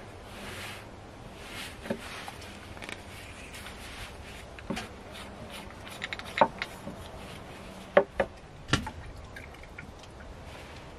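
A hip flask being opened and whiskey poured from it into a wooden cup of coffee: scattered light clicks and knocks from the flask's cap and from handling, with a few sharper knocks in the second half.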